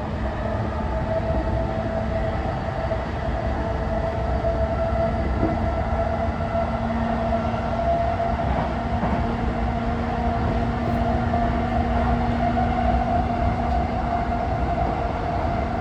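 Inside a JR E233-5000 series electric motor car running at steady speed: the rumble of wheels on rail with a steady hum and whine from the traction motors and gearing.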